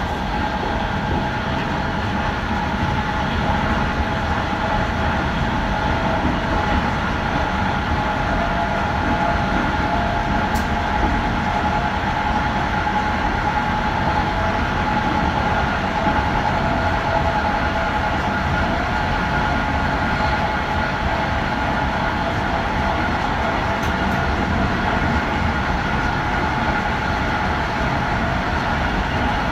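Passenger train running at steady speed, heard from inside its rear cab: an even rolling rumble of wheels on the rails with a steady hum of several tones through it.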